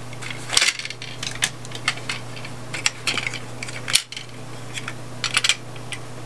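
Small hard plastic toy pieces clicking and tapping against each other as they are handled, a run of short, irregular light clicks, the sharpest about four seconds in.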